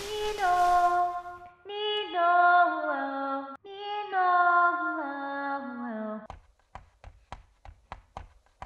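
Background music: a wordless melody in three phrases, each stepping downward in pitch. About six seconds in it gives way to a scattered run of sharp clicks or taps.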